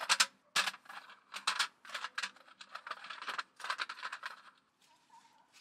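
A folding camp table being taken apart: the tabletop is lifted off its metal frame with a quick run of clatters, knocks and rattles for about four seconds, then it goes quieter.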